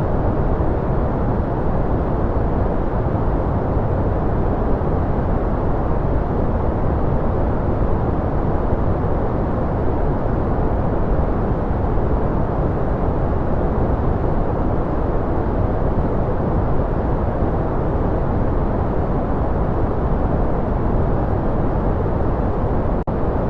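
Steady white noise for sleep or focus: an even, unbroken rush with most of its weight in the low end and little treble. Loudness dips for a moment once, near the end.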